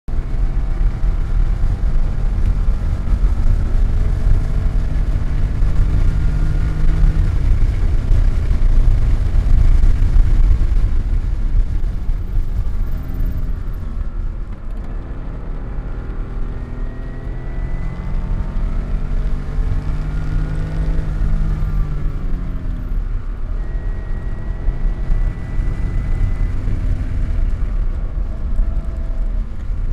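Car engine running hard at track speed, its pitch climbing under acceleration and dropping at shifts and braking, over heavy low rumble of wind and road noise.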